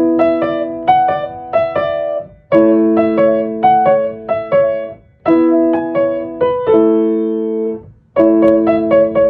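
Solo piano music: a slow melody over held chords, played in short phrases of about three seconds with brief breaks between them.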